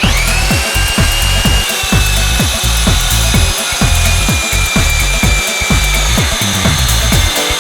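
A power drill running a core bit through material: a steady whine that dips slightly in pitch about a second and a half in, over a grinding cutting noise.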